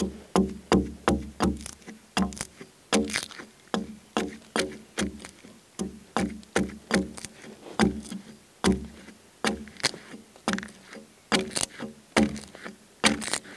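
Single-bevel hewing axe chopping into the side of a log in quick, steady strokes, about three a second, each a sharp hit of steel into wood with a short woody ring, as the round log is hewn flat into a square beam.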